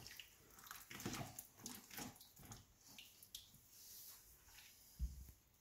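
Faint wet squelching and soft clicks of bare hands working raw chicken pieces into a spice marinade in a plastic bowl, with a low thump about five seconds in.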